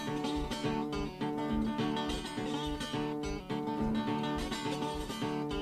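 Acoustic blues guitar playing alone, a steady picked and strummed accompaniment with a regular bass beat and no singing.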